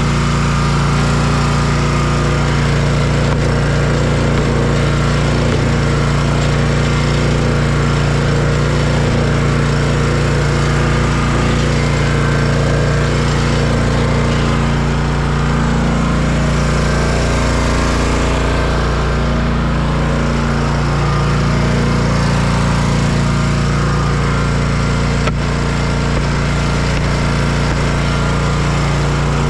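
Zero-turn riding mower's engine running steadily, with a slight drop in pitch about halfway through.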